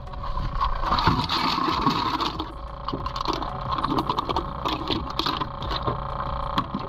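Bay scallop shells clattering as a mesh bag of them is emptied into a plastic bucket: a dense run of clicks for the first couple of seconds, then scattered clicks. A steady hum runs underneath.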